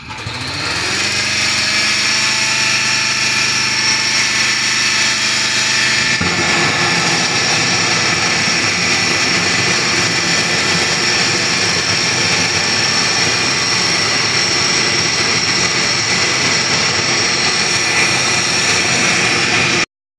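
Gas preheating burner for an aluminothermic rail weld, lit and running with a steady loud roar. It builds up over the first second or so, with a low hum under it for about the first six seconds.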